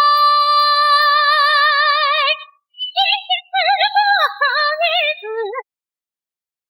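A high singing voice holds one long note whose vibrato widens toward its end. After a short break it runs through a quick, wavering melodic phrase that stops about two-thirds of the way in.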